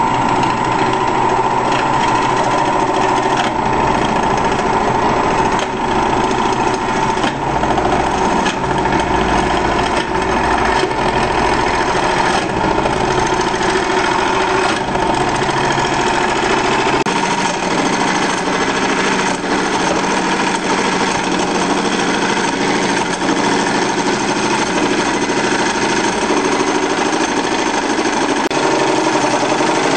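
Harbor Freight 10 x 18 wood lathe, converted to cut metal, running while a tool turns a wooden pulley blank: a steady mechanical noise with a constant whine.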